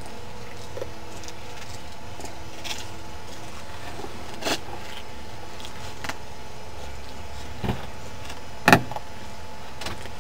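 Steady low outdoor hiss with a few light scattered clicks. About three-quarters of the way in comes one sharper, louder click as the door latch of a white BMW 3-series coupe is pulled open.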